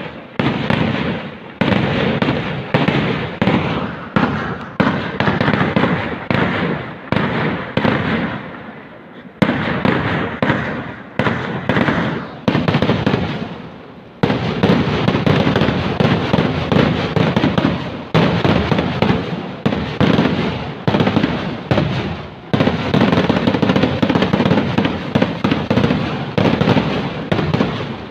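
Kerala temple-festival fireworks (vedikettu) going off in a rapid barrage of loud bangs, each dying away before the next. There are brief lulls about 9 and 14 seconds in, and after that the blasts come almost without a break.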